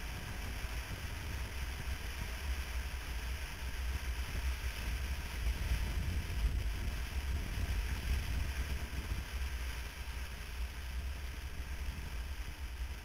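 Motorcycle riding at road speed: a steady low rumble of engine and wind buffeting the microphone, with wind rushing over it.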